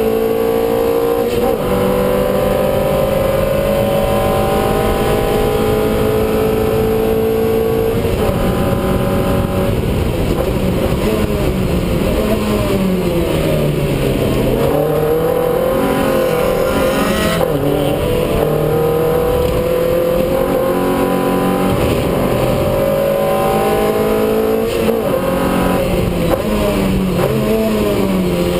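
Race car engine heard from inside the cockpit, pulling hard with rising pitch through upshifts. About halfway through, the pitch drops as the driver brakes and downshifts for a corner, then it climbs again under full acceleration.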